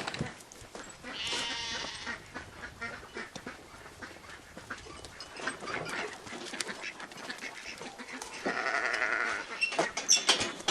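Farm livestock calling: one drawn-out call about a second in, then a louder one near the end.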